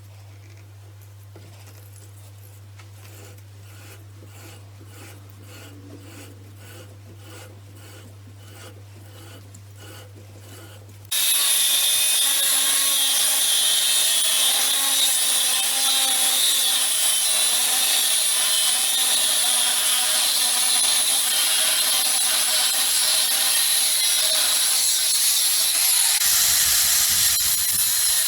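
A faint low hum with soft regular ticks, then, about eleven seconds in, an angle grinder starts abruptly and runs steadily with a high multi-tone whine, driving a homemade random orbital sanding attachment that rubs against wood.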